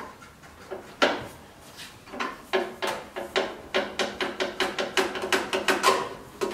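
A metal motorcycle exhaust pipe knocking and clinking against its joint as it is wiggled and pulled off by hand. There is one sharp knock about a second in, then a run of quick, ringing metallic knocks, about four a second.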